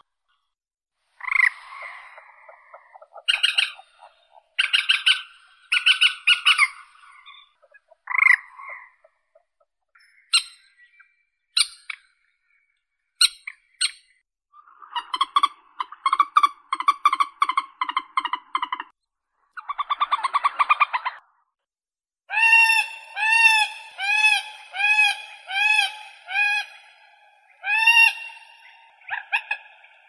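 Common moorhen calling: scattered sharp single calls, then a fast run of notes in the middle, and a string of repeated calls about two a second near the end.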